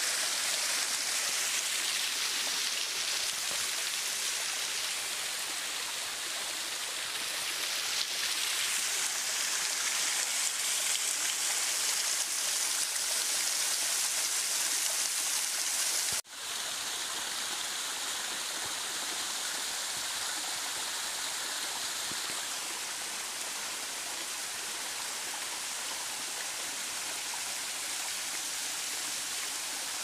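Small waterfall spilling over rock ledges and splashing onto the stones below: a steady rushing hiss of falling water. About halfway through it drops out for an instant and comes back slightly quieter.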